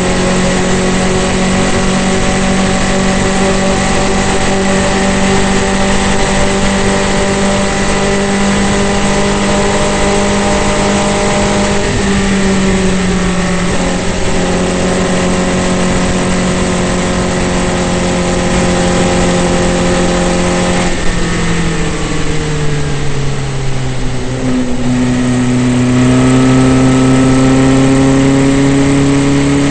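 Formula Vee race car's air-cooled Volkswagen flat-four engine heard from the cockpit, running at a steady high pitch near full throttle. The note dips slightly about twelve seconds in, falls over a couple of seconds a little past twenty seconds as the car slows for a corner, then climbs again as it accelerates out.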